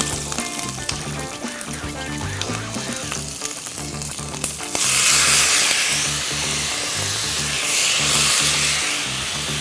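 Chopped vegetables sizzling in hot olive oil in a stainless steel sauté pan. The sizzle jumps suddenly much louder about five seconds in, as chopped tomatoes go into the pan, and is then stirred with tongs.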